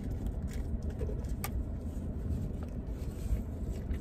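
Steady low rumble inside a car, with scattered light clicks of a plastic fork in a plastic takeout tray and eating sounds. One sharp click about a second and a half in.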